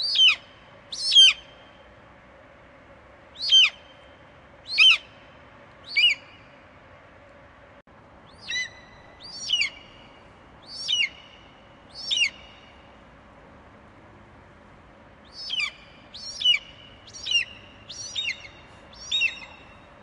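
Bald eagle calling: short, high-pitched chirps that fall in pitch, about one a second, in groups of two, then three, then four, then five with short pauses between, over a faint steady hum.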